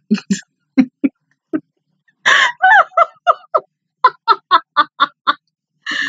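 A woman laughing hard: a few short bursts, then a high squealing laugh about two seconds in, then a quick run of "ha" laughs, about four a second.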